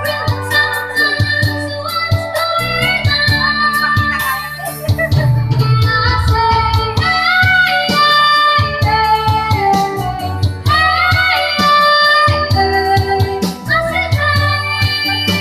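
A boy singing a slow song into a corded microphone, his voice amplified, with long held notes over a backing track that has a strong bass and a steady beat.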